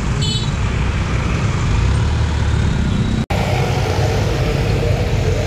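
Steady engine rumble of road traffic at a railway level crossing. A short, high beep comes just after the start, and the sound cuts out for an instant about three seconds in.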